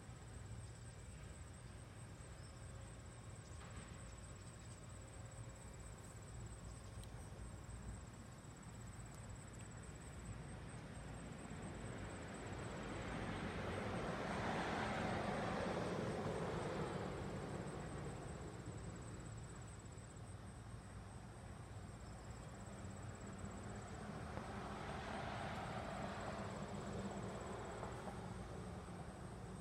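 Two vehicles pass, each swelling and fading: a louder one around the middle and a smaller one near the end. Under them runs a steady high insect trill.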